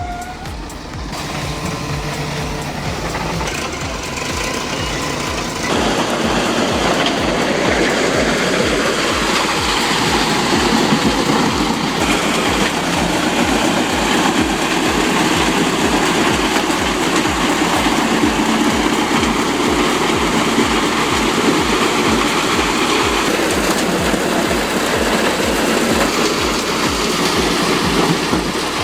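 Heavy diesel machinery running hard: a loud, rumbling mechanical clatter that grows louder about six seconds in and then holds steady.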